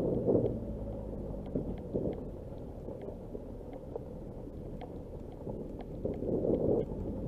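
Nissan Qashqai J11 driving slowly on a dirt track: a low steady rumble of engine and tyres on the gravel, with faint scattered clicks.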